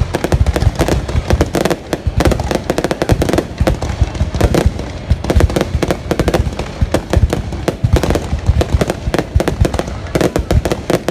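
Fireworks display: a dense, continuous barrage of sharp bangs and crackles, many per second.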